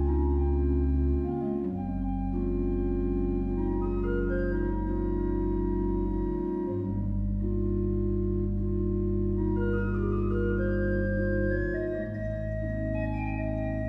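Pipe organ playing slow held chords over deep bass notes, which change about every five seconds while higher notes step slowly above them.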